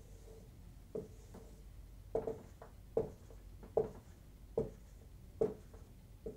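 Dry-erase marker on a whiteboard: short taps and strokes as dots and ovals are drawn, about one a second.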